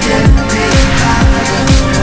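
Electronic dance music with a steady kick drum beating about twice a second under held synth tones.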